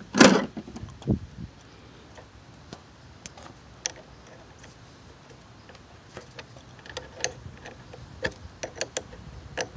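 A metal wrench working the nut on the battery's positive cable clamp as it is tightened: a run of light, irregular metal clicks and ticks that come thicker in the last few seconds. It opens with one louder knock.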